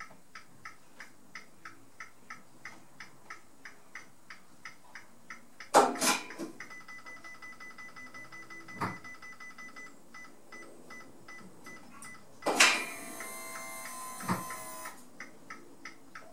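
Abarth 500 indicator ticking steadily, about three ticks a second, while the indicators flash. Two loud knocks break in about six and twelve and a half seconds in, the second followed by a couple of seconds of noise, with a faint steady high tone between them.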